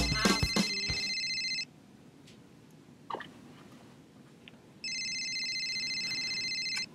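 Mobile phone ringtone ringing twice: a high, finely pulsing electronic ring about two seconds long, then a pause of about three seconds and a second ring of the same length. The tail of music fades out under the first ring.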